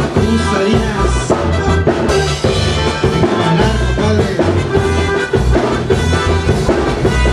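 Live band playing a chilena mixteca: an instrumental passage with a steady bass-and-drum beat and a full band texture.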